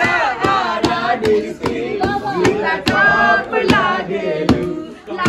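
Several people singing a song together, with hand claps keeping a beat about twice a second.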